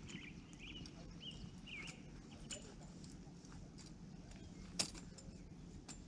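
A few short, high bird chirps in the first two seconds, over a low steady hum, with scattered light clicks and one sharp click about five seconds in.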